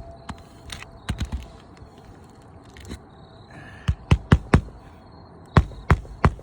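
Sharp knocks in quick clusters: three just after a second in, four rapid ones around the middle, and several more near the end.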